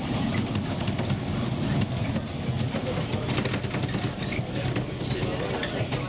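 Narrow-gauge railway passenger carriages running along the line: a steady rumble of wheels on rail, heard from inside a carriage, with many small clicks and rattles through it.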